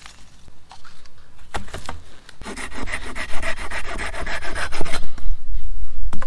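Silky Pocketboy folding pruning saw cutting through a dry branch, with a quick run of even back-and-forth rasping strokes from about two and a half to five seconds in, until the cut end breaks off.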